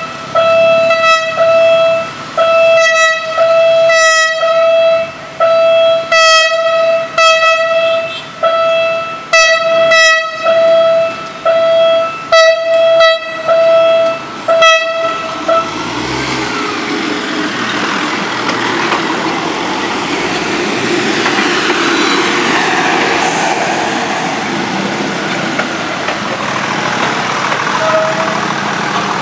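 Philippine National Railways diesel multiple unit sounding its single-note horn in a long series of short blasts, about one a second, as it nears a level crossing. The horn stops about fifteen seconds in, and the steady noise of the train's engine and wheels passing close follows, with one brief horn note near the end.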